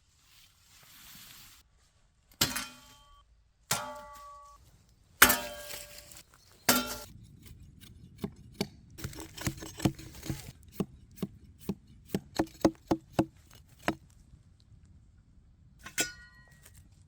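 A metal tool striking wood: four heavy blows with a brief metallic ring after each, then a run of quicker, lighter knocks at about two or three a second, and one more ringing blow near the end.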